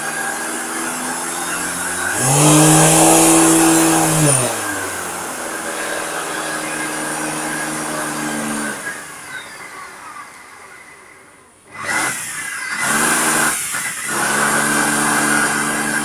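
LG 1800W canister vacuum cleaner's motor running with a droning, engine-like hum. About two seconds in it surges louder, rising in pitch and falling back like an engine revving. Around nine seconds it fades away, then comes back abruptly near twelve seconds. The owner puts the vibrating drone down to a ball bearing in the rotating part that is sticking or has too much friction, perhaps from dust.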